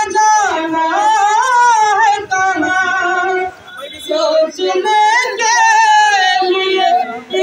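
A man singing into a handheld microphone: long held notes that waver in pitch, with short breaks about halfway through and just before the end.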